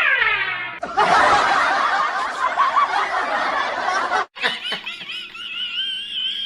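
Laughter, likely a snickering laugh sound effect: a dense burst of laughing for about three seconds, then after a brief break a wavering high-pitched sound to the end.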